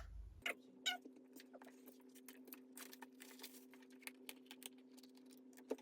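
Faint scattered clicks and taps of small objects being handled, over a low steady hum.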